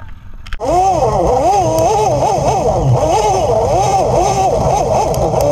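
Polaris RZR 800's twin-cylinder engine running while the side-by-side drives a dirt trail, heard onboard, cutting in abruptly about half a second in. Its revs rise and fall repeatedly, about twice a second.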